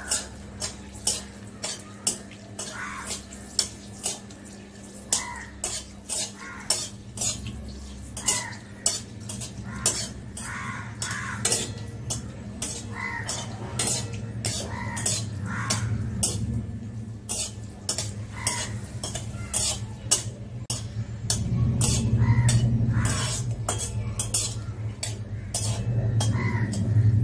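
Metal spatula scraping and clinking against a metal kadai, with many sharp clicks about one or two a second, as two dried red chillies fry in hot oil with a light sizzle.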